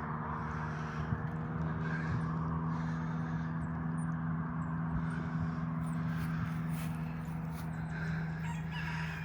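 An engine running steadily, a low even hum, with small birds chirping faintly above it and a chicken call starting near the end.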